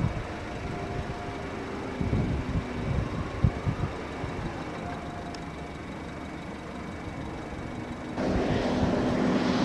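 Steady low rumble of a vehicle, with irregular low thumps about two to four seconds in. Near the end it steps up to a louder steady hiss and hum.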